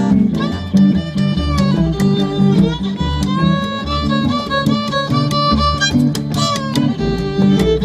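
Live acoustic band playing an instrumental passage of a country-blues song: a fiddle carries the melody in long, sliding notes over plucked guitar.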